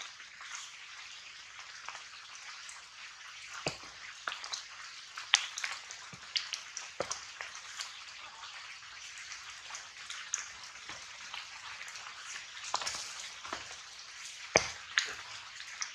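Outdoor ambience in wet undergrowth: a steady hiss with scattered light crackles and ticks, like drops and leaf litter, and a few sharper clicks, the loudest about five seconds in and near the end.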